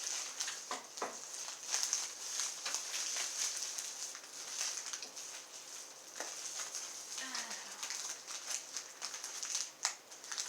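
Product packaging being handled and opened: irregular rustling and crinkling with scattered small clicks.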